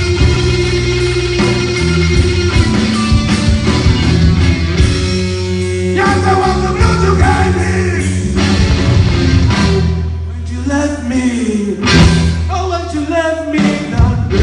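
Live blues-rock band playing: electric guitars over a Peavey Patriot bass guitar and drums. In the second half, lead lines bend up and down in pitch.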